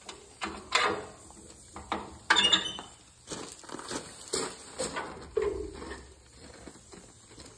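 Metal clanks and clicks from a Tommy Gate truck lift gate as its latches are worked by hand and the folded steel platform is handled: a run of sharp knocks, the loudest in the first three seconds.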